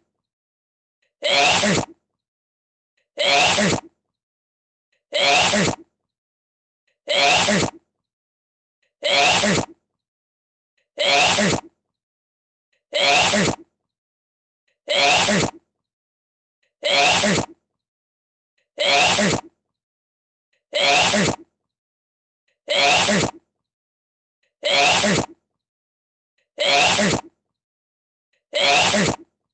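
A person sneezing over and over, one short sneeze about every two seconds, each one alike, with dead silence between.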